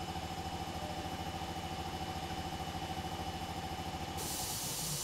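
An engine or motor running steadily with a fast, even throb and a faint held hum; about four seconds in, a steady hiss comes up suddenly and the throb fades.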